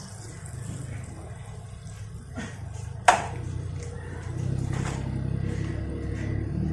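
A low steady hum, with one sharp clack about three seconds in as turmeric is tipped from a plastic cup into a large aluminium pot of hot oil.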